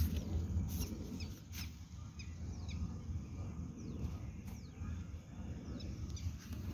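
Faint outdoor ambience: a steady low rumble, several short, high, falling bird chirps, and a few soft steps.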